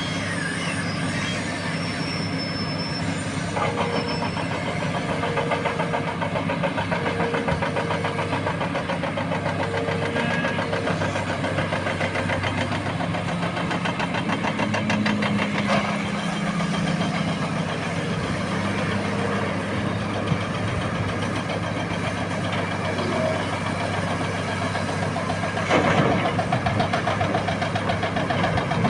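Hitachi Zaxis 330 hydraulic excavator's diesel engine running steadily under working load, with hydraulic and machine noise over it. A short tone repeats several times in the first third. Near the end there is a louder rush of noise lasting a few seconds.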